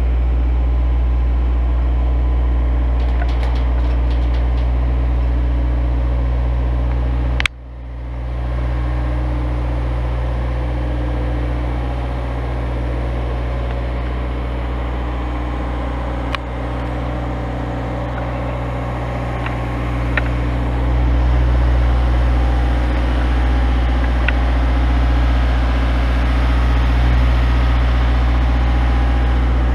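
A boom lift's engine runs steadily with a low, constant hum. About seven seconds in there is a sharp click, and the sound dips briefly before it recovers.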